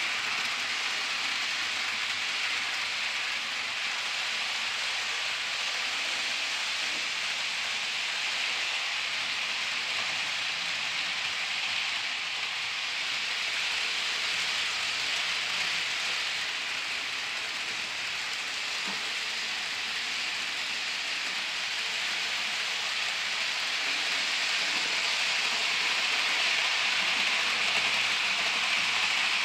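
HO scale model trains running on the layout: a steady hissing whir of wheels on track and small motors, a little louder near the end.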